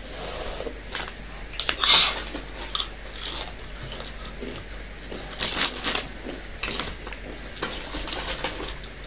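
Crunchy potato chips being bitten and chewed: an irregular run of short, sharp crunches, a few louder ones among them.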